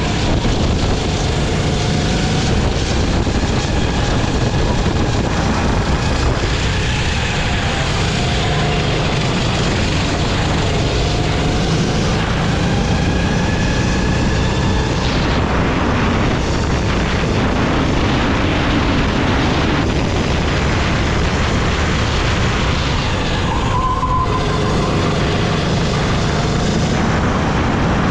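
Kart engine running hard at racing speed, heard from on board, its pitch rising on the straights and dropping off into the corners several times.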